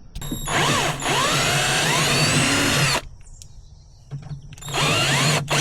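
Handheld power drill enlarging the mounting holes in a bilge switch plate. It spins up and runs for about three seconds, stops, then starts again about a second and a half later.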